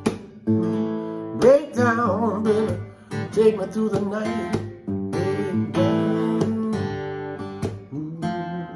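Steel-string acoustic guitar playing strummed chords with single-note fills over an A minor–G–F progression, with a man singing along without words.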